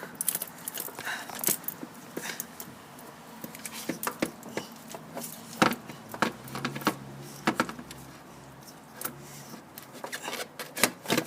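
Irregular metallic clicks, knocks and rattles of hand tools and car parts being worked on, as a starter motor is loosened and pulled out of a car's engine bay.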